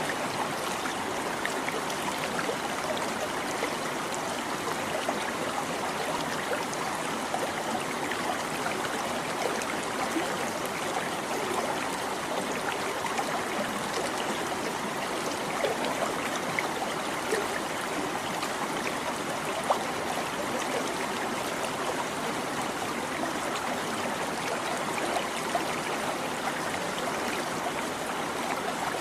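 Small stream babbling over rocks, a steady trickling and gurgling of running water.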